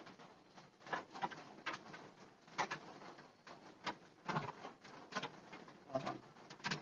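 Cloth rustling and handling noise as a dark uniform jacket is held and moved right in front of the phone, in irregular scratchy strokes.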